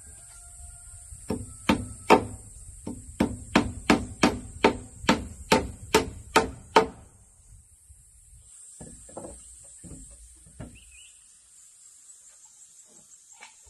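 A hammer nailing wooden planks: a run of about fourteen sharp blows, two or three a second, that stops about seven seconds in. A few lighter knocks follow.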